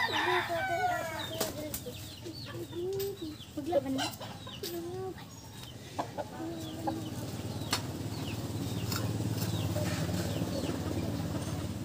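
Chickens clucking, a run of short calls in the first few seconds and scattered ones after. In the second half a low steady rumble comes up underneath.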